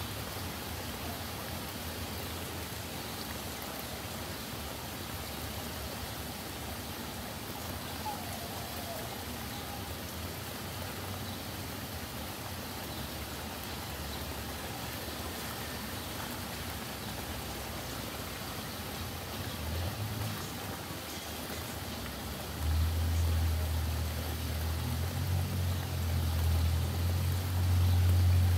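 Steady rain falling on a street and roof. Near the end a low rumble of thunder comes in and grows louder.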